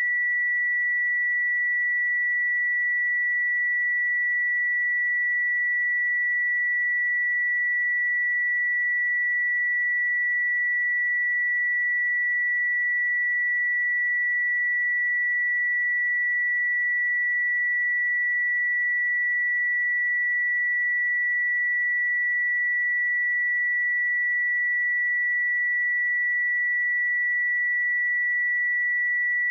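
A single pure sine-wave test tone at 1952 Hz, held steady at one pitch and level: a speaker and headphone test signal.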